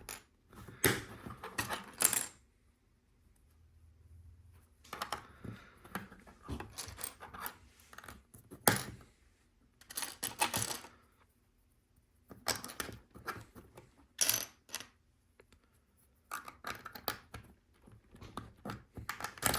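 Small plastic LEGO bricks clicking and clattering as they are handled and pressed onto a part, in clusters of sharp clicks with a few short pauses.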